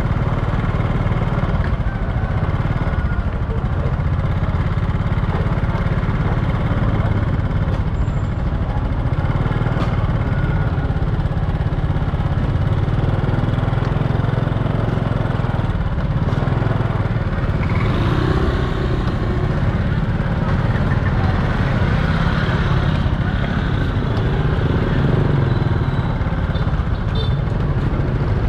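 Busy street-market traffic noise: motorbike and scooter engines running and passing over a steady low rumble, with scattered voices.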